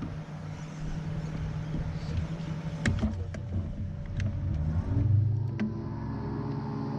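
A boat motor running steadily, with a few sharp clicks and knocks. About five seconds in, the motor note swells, then settles into a steady higher hum.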